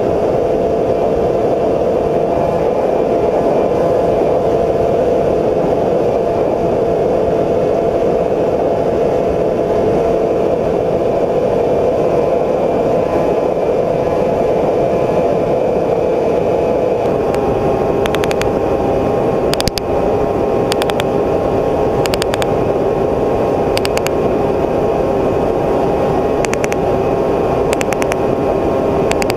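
Multirotor drone's motors and propellers whirring steadily on its own onboard microphone, a loud hum with several held pitches. In the second half a series of short crackles comes in on top.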